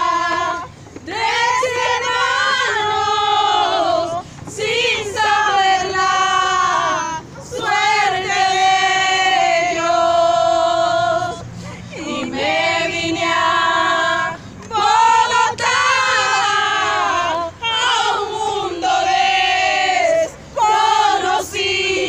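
Alabao sung a cappella by a group of voices, mostly female: an Afro-Colombian funeral chant in long sung phrases with held notes, broken by brief pauses for breath.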